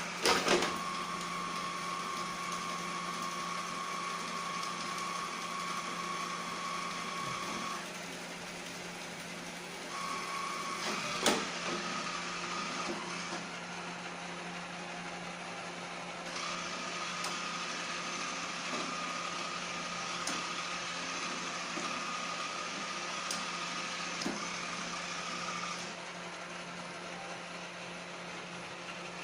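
Iseelife robot vacuum's motor running with a whine, cutting out and starting again three times, with a sharp click near the start and another about eleven seconds in, over a steady low hum. The owner says the vacuum went faulty two weeks from new.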